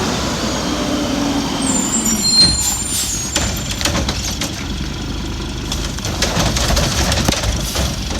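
Heil garbage truck's diesel engine running, with a brief high squeal about two seconds in, typical of air brakes. Many sharp ticks throughout, fitting heavy rain striking the plastic bag around the phone.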